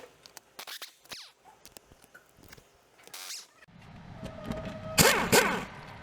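Light clicks and scraping of plastic car trim and its fasteners being worked loose, with louder scraping of the plastic panel about five seconds in.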